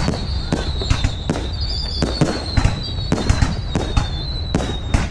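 Aerial fireworks bursting in a rapid, irregular string of sharp bangs, about three a second, over a steady low rumble of further explosions.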